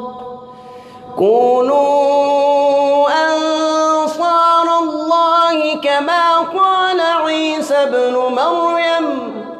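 A man's voice reciting the Quran in a melodic, drawn-out chant through a microphone. After a brief pause, one long phrase begins about a second in. Its pitch steps and glides up and down, and it fades away near the end.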